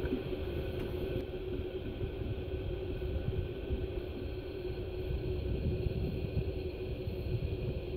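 A vehicle running: a steady low rumble with a constant hum over it.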